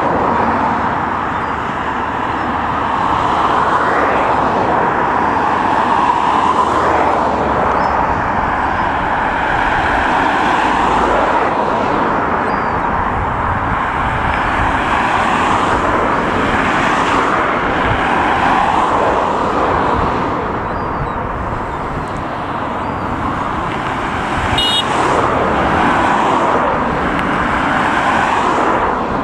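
Class 70 diesel locomotive running light, its engine working steadily, mixed with steady road-traffic noise.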